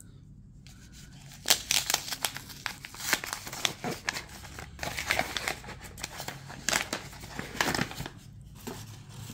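A paper pack wrapper being torn open and crinkled by hand. A run of sharp crackles and tears starts about a second and a half in and eases off near the end.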